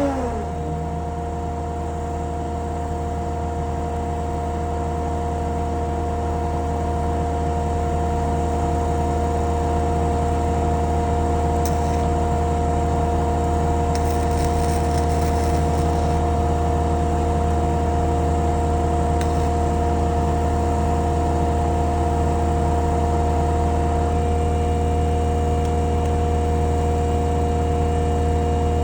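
An engine running steadily at a constant speed with a low hum, its pitch briefly swelling and settling right at the start.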